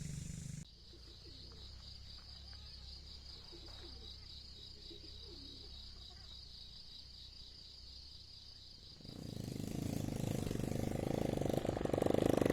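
Outdoor rural ambience with a steady high pulsing drone and faint bird chirps, then about nine seconds in a motor starts running and grows loud.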